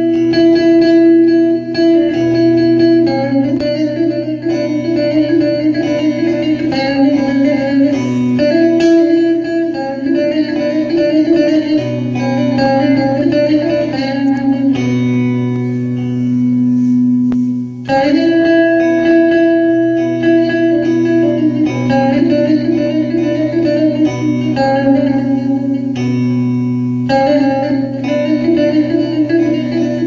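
Bağlama (long-necked Turkish saz) played solo, a Turkish folk tune (türkü) in quick plucked note runs over a steady ringing drone, with a stretch of held notes about halfway through.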